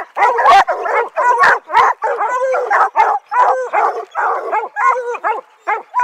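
Several hunting dogs barking in a fast, unbroken chorus while they jump at the base of a tree: treed barking, the sign that they have a bear up the tree.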